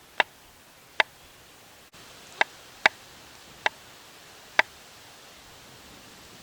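Wood fire in a Forfar stove crackling: six sharp pops at uneven intervals over a faint steady hiss.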